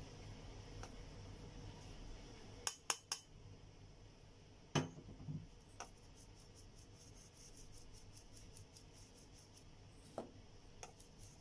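A metal sieve clinks against a stainless steel mixing bowl a few times, loudest about five seconds in. Then the sieve is shaken to sift cocoa powder, making a fast, even, faint rattle.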